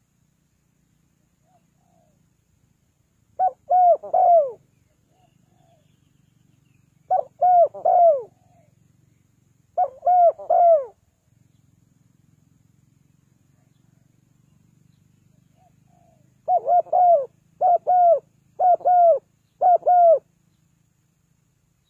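Spotted dove cooing: phrases of about three short, downslurred coos, given singly at first with pauses of a few seconds, then four phrases in quick succession near the end.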